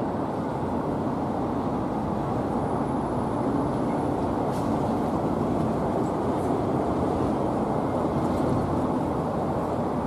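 Steady low rumble of background noise with no bird calls.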